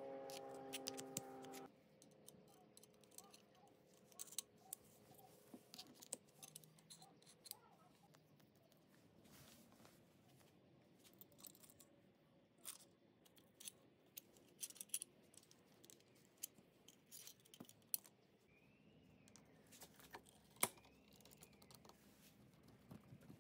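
Faint, scattered clicks and taps of air rifle parts being handled: the steel receiver tube and its coiled mainspring moved and fitted by gloved hands.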